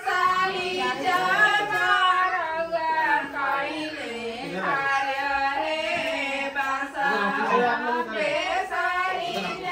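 Women singing a traditional wedding song, with sustained, gliding notes.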